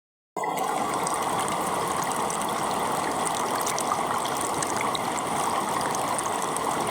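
Steady rush of water at a waterfall, an even splashing hiss that cuts in abruptly about a third of a second in and holds level.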